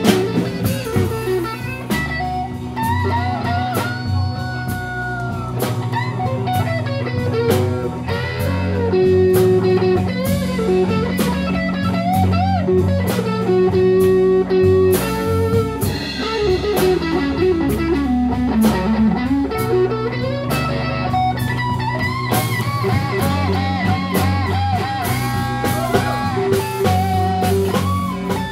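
Live slow blues band: an electric guitar solo on a Stratocaster-style guitar, full of bent and wavering notes with a long falling run about two-thirds of the way through, over electric bass and a drum kit.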